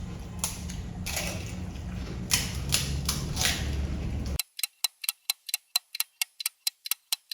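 A low hum with scattered crackling noises, then, about four and a half seconds in, a timer alarm starts beeping rapidly, about five short high beeps a second. The alarm signals the end of the two-minute eating time.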